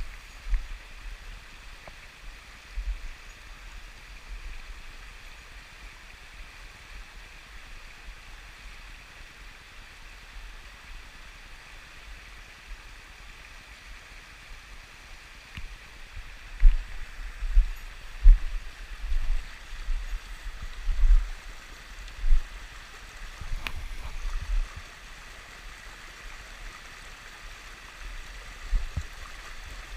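Mountain stream water rushing and gurgling steadily. Low thuds and rumbles on the microphone come in a cluster from about halfway through.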